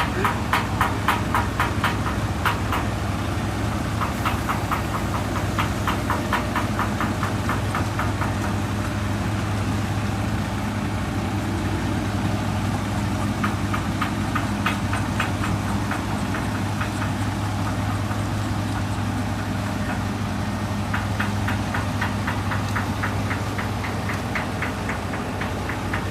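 Diesel truck engine running steadily with a low hum, with stretches of fast, even clatter that come and go.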